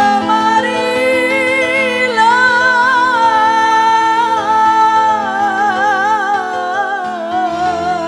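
Woman singing a qasidah song into a microphone, holding long notes with wavering ornaments over steady keyboard chords from the band.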